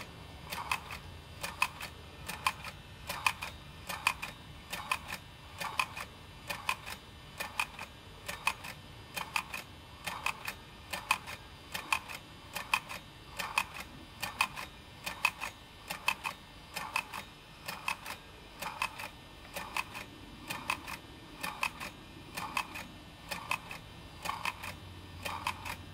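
Model Trevithick dredging steam engine running on live steam, its beat a regular ticking of about two clicks a second over a faint low hum.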